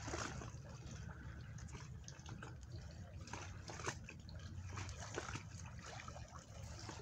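Small waves lapping among reeds at the water's edge: soft, scattered splashes and trickles over a low, steady rumble.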